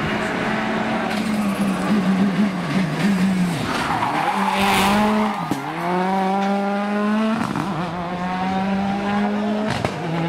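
Renault Clio N5 rally car engine working through a hairpin. The revs fall and pick up on the approach, the tyres squeal briefly about four to five seconds in, then it accelerates away with rising revs and an upshift. There is a short sharp pop near the end.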